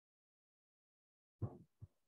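Near silence, broken about a second and a half in by a brief low sound and a shorter blip just after it.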